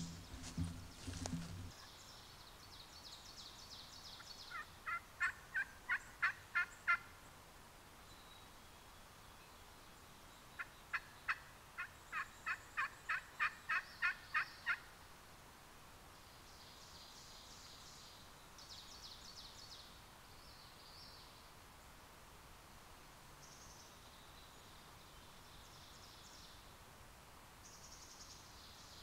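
Two series of wild turkey yelps, about three a second. A short run of about eight comes a few seconds in, and a longer run of about a dozen follows about ten seconds in. Fainter, higher chirping comes in between.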